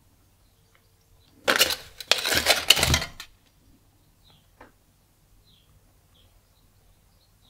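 Foil-paper lid of a Nissin Cup Noodles pot being peeled back off the rim: a crackling tear lasting about two seconds, starting about a second and a half in. A single small tap follows a little later.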